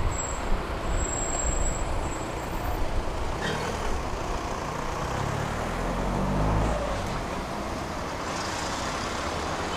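City street traffic at night: a steady hum of road traffic, with a passing vehicle's engine swelling in the middle and fading.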